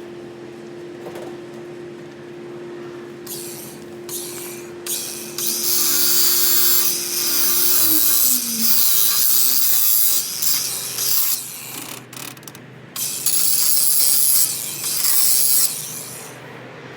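Power grinder cutting into a rusted roll pin: a steady motor whine that drops in pitch about eight seconds in, and harsh high-pitched grinding noise from about three seconds in, in several long stretches with short breaks.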